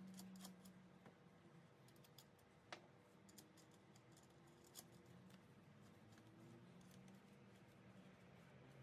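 Faint metal clicks and taps of a nut and washer being handled and threaded onto a bolt in a trolley jack's steel frame, with a sharper click a little under three seconds in and another near five seconds.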